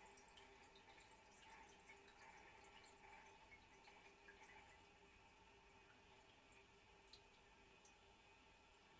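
Faint dripping and trickling of water in a toilet after a flush. The drips thin out about halfway through, leaving a faint steady hiss.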